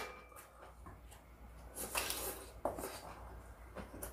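A few faint clinks and clatters of dishes and eating utensils at the table, the clearest about two seconds in and again near the end.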